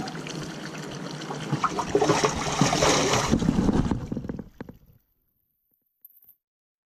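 Water sloshing and splashing in a bass boat's livewell as bass are grabbed by hand and lifted out, dripping, into a weigh bag; loudest about two to three seconds in. The sound fades and cuts out to silence about five seconds in.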